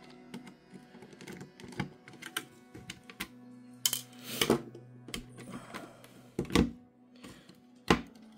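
Irregular clicks, taps and knocks of a screwdriver and plastic parts of a small solar light being handled during a teardown, with a few louder knocks in the second half.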